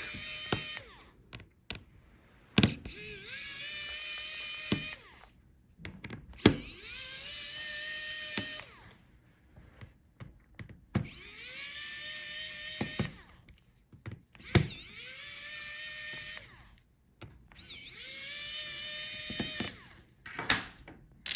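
Small electric screwdriver whining in repeated runs of about two seconds, each rising in pitch as the motor spins up, as it backs out the laptop's hinge screws one after another. Light clicks and knocks of the screws and tool come between the runs.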